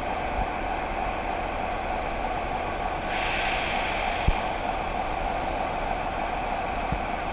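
Diesel locomotive engine idling steadily. A burst of air hiss starts about three seconds in and lasts over a second.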